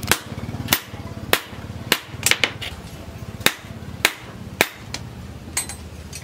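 Hand hammer striking a red-hot steel bar on a steel post anvil: about ten sharp blows, roughly one every half second, with a short pause in the middle.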